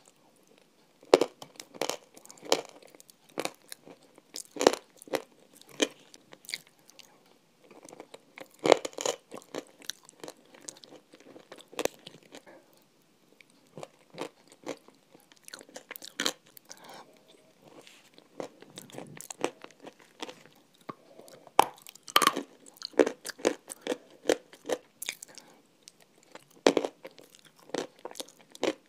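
Close-miked eating sounds from spoonfuls of frozen chocolate ice cream: crunchy bites and wet chewing in irregular clusters of sharp clicks, easing off briefly about halfway through.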